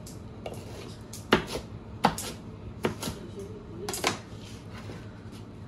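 A blade chopping through a freshly baked pizza, each cut knocking sharply against the surface beneath: about eight knocks, some in quick pairs.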